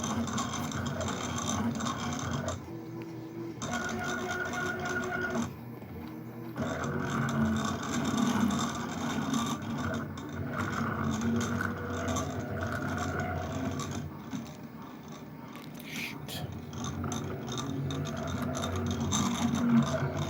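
CNC table's stepper motors driving the gantry along its ball screws, a whine whose pitch jumps and changes with each short move, pausing briefly a few times between moves.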